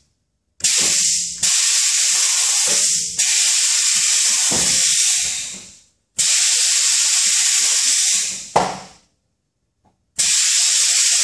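Drum compactor's pneumatic press cycling: loud bursts of compressed-air hiss as the press drives down on the drum. There are three long bursts with short quiet gaps between them, the first about five seconds long, and a sharp knock near the end of the second.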